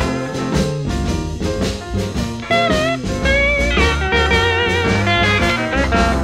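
Electric blues recording, instrumental break: an electric slide guitar plays wavering, gliding lines over a steady bass and drums.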